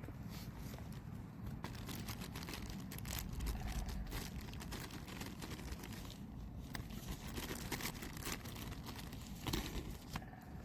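Food packaging being handled and crinkled: an irregular run of plastic rustles and small clicks.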